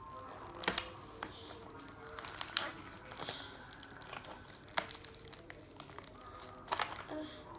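Small cardboard Tomica toy-car box being handled and pried open by hand: irregular crinkling of the card with a handful of sharp snaps and clicks spread through.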